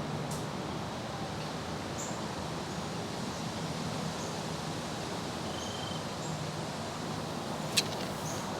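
Steady wind rushing through the trees, with a few faint short high chirps and a single sharp click near the end.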